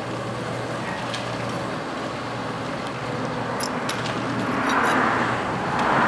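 A motor running steadily with a low hum, joined by a rushing hiss that swells about five seconds in; a few faint light clinks just before it.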